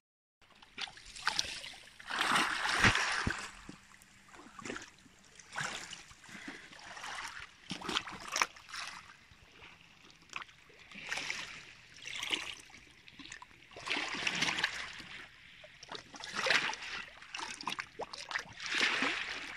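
Small waves lapping and splashing at the water's edge in short, irregular washes every second or two.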